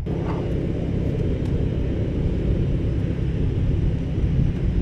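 Steady jet engine rumble from aircraft running on an airfield flight line.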